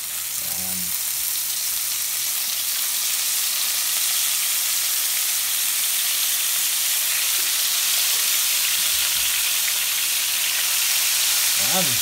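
Flour-coated basa fish fillets sizzling as they deep-fry in hot oil in a frying pan. The sizzle swells over the first few seconds as the fillets go in, then holds steady.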